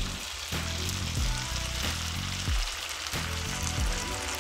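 Jerk-marinated chicken breasts sizzling steadily in a hot, oiled grill pan, the frying noise that shows the pan is hot enough.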